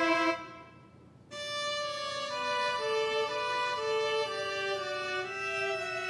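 Background music: a violin melody of long held notes moving step by step. The music breaks off about half a second in and starts again a second later.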